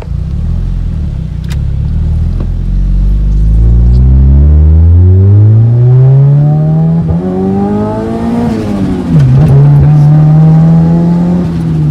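Turbocharged Honda D16 SOHC four-cylinder engine, heard from inside the car, pulling hard under acceleration. Its pitch climbs steadily for several seconds, drops sharply about nine seconds in, pulls again, then falls away near the end as the throttle is lifted.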